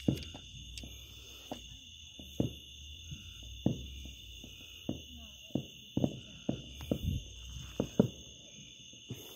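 Irregular footsteps on gravelly dirt, about one or two a second, over a steady high-pitched chorus of night insects.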